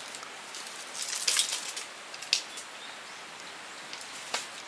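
Outdoor garden ambience with a few brief rustling, scraping sounds: a cluster about a second in, then single sharp ones past the middle and near the end.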